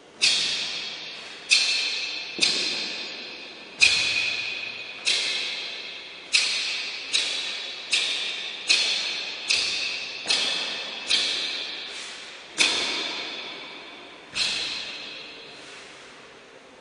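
A series of sharp cloth snaps from a taekwon-do uniform (dobok), about fourteen of them roughly a second apart, one with each technique of the pattern. Each snap echoes and fades over about a second in a hall.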